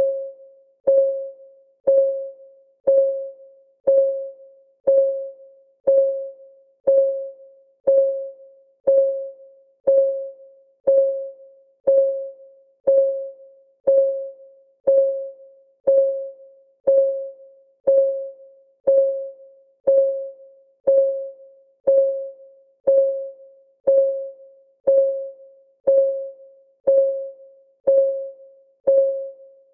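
Clock-ticking sound of a countdown timer: a short pitched tick about once a second, each one dying away quickly, in a steady unbroken rhythm.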